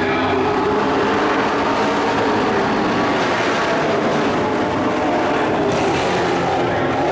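Race trucks' engines running at racing speed on a dirt oval, a loud steady drone whose pitch shifts as the trucks go by.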